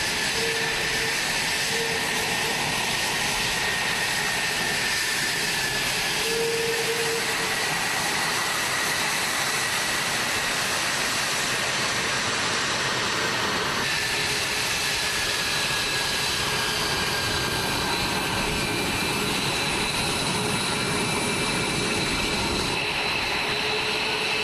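F-22 Raptor's twin Pratt & Whitney F119 turbofans running at taxi power: a steady, loud jet rush with a high whine that drifts slightly in pitch.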